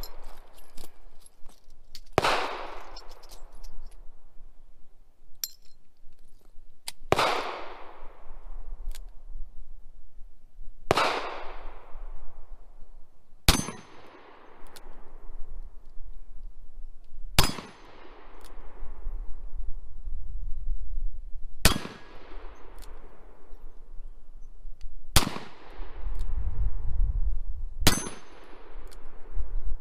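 Eight single shots from a stainless double-action revolver, fired a few seconds apart, each crack followed by a long echo that fades over a second or two. Low wind rumble on the microphone near the end.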